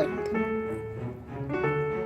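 Background music with piano-like notes.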